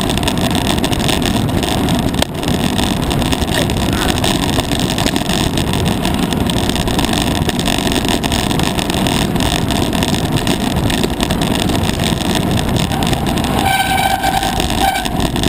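Mountain bike riding fast down a rough gravel singletrack: steady wind buffeting on the microphone mixed with the rattle of tyres and bike on loose stones. Near the end a brief whine sounds over it for about a second.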